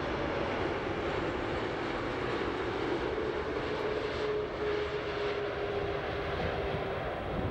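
Boeing 747-8 on final approach with landing gear down, its four GEnx jet engines giving a steady rumble, with a faint whine coming through for a few seconds in the middle.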